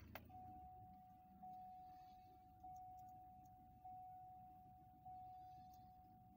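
Dashboard warning chime of a 2007–2014 GM full-size SUV dinging five times, about one ding every 1.2 seconds, each a single steady tone that fades away. A short click comes just before the first ding, and the engine idles faintly underneath.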